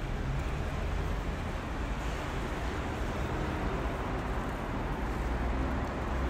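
Steady city street ambience dominated by the low rumble of road traffic.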